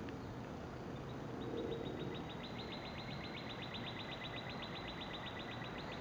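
A high-pitched trill of rapid, evenly spaced chirps, about nine a second, starts about a second in and stops near the end, over a steady background hiss.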